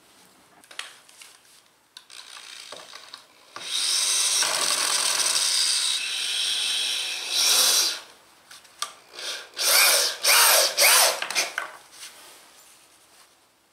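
Corded power drill working into a pressure-treated pine board: one long steady run of about four seconds, then, after a short pause, several short trigger bursts. A few light clicks and knocks from handling come before it.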